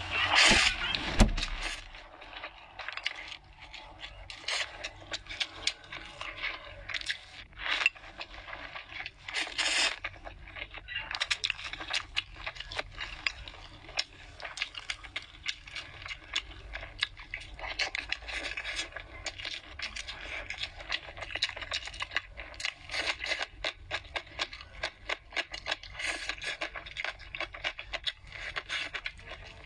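Eating sounds: a noodle slurp in the first second or so, then wet chewing and lip smacking in a dense, irregular run of small clicks and smacks, with another slurp around ten seconds in.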